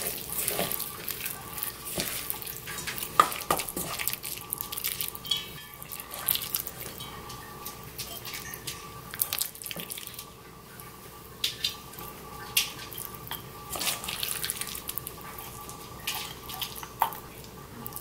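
Wet, sticky squishing and scraping as flaked dried yellow croaker is mixed into gochujang in a stainless steel bowl, with irregular clicks and taps of wooden chopsticks and a spoon against the bowl and an earthenware jar. A faint steady hum runs underneath.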